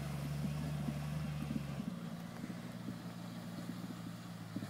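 Off-road vehicle engine idling steadily, its note shifting slightly about two seconds in.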